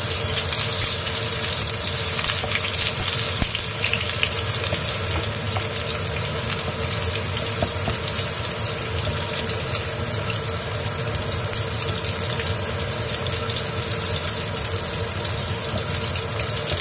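Sliced onions sizzling steadily in hot oil in a frying pan as they brown.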